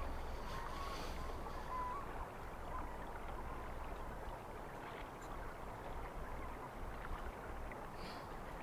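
Steady wash of water at a glacier lake with a low rumble underneath, and a faint wavering call in the first two seconds.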